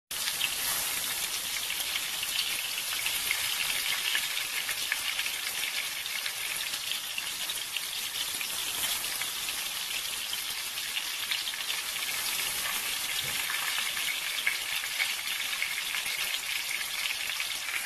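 A whole scored pompano shallow-frying in hot oil in a pan: a steady sizzle dense with fine crackles.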